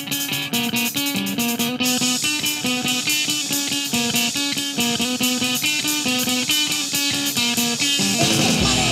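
Live punk band playing an instrumental passage: electric guitar picking a repeating riff over a drum kit. Near the end the band comes in harder and the sound gets fuller and louder.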